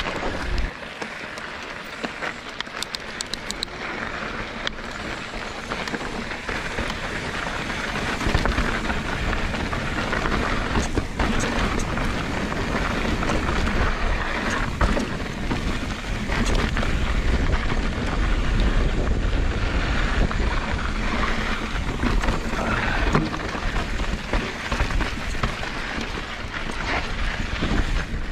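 Mountain bike riding down a rocky dirt trail: tyres crunching over rock and gravel, with scattered clicks and knocks from the bike, under heavy wind rumble on the camera microphone that grows louder from about eight seconds in.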